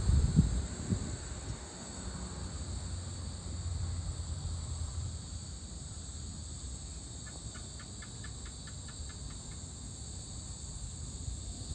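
A steady, high-pitched chorus of evening insects, crickets among them, trilling without a break. A low rumble is loudest in the first second, and about seven seconds in a short run of about ten quick chirps, five or so a second, sounds over the chorus.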